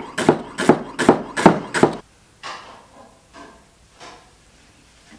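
Kitchen knife slicing fennel stalks thinly on a wooden chopping board: quick, regular crisp cuts, about two and a half a second. The cutting stops abruptly about two seconds in, leaving only a few faint soft handling sounds.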